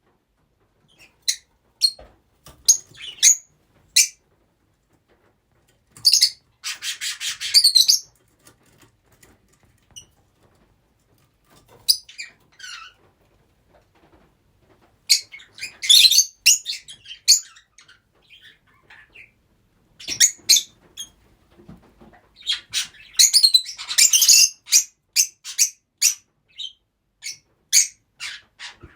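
Several peach-faced lovebirds calling: sharp, high chirps in scattered bursts with short quiet gaps. The calling comes in denser flurries about six seconds in, around fifteen seconds, and again over the last few seconds.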